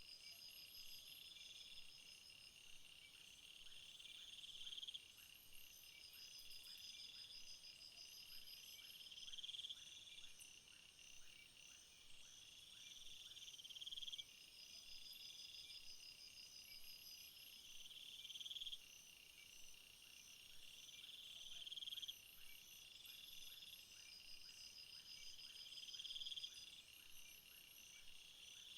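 Faint summer chorus of crickets and other insects. One buzzing song swells for about four seconds and cuts off, again and again, while short high trills come and go over a steady high chirring.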